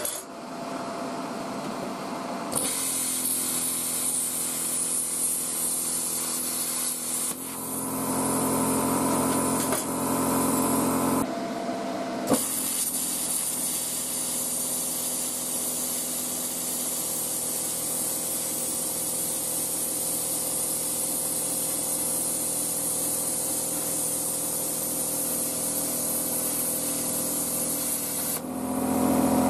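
Parkside PPSK40A1 plasma cutter cutting 1 mm sheet metal: a steady hiss of the arc and air jet over the hum of its built-in compressor. The hiss starts a couple of seconds in, breaks off for about a second a third of the way through, starts again and cuts off near the end.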